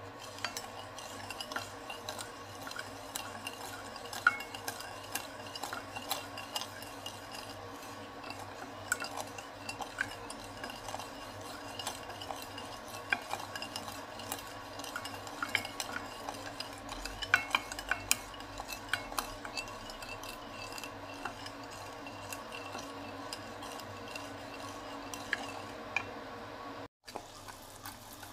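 Wooden spatula stirring sugar and water in a glass saucepan to make caramel syrup, with frequent light taps and scrapes against the glass over a steady background hiss. The sound cuts out for an instant near the end.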